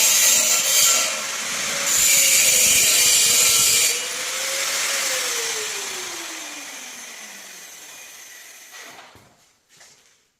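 Power saw cutting, with two loud cuts, the second lasting about two seconds. The motor is then switched off, and its whine falls steadily in pitch as the blade spins down. A few faint knocks follow near the end.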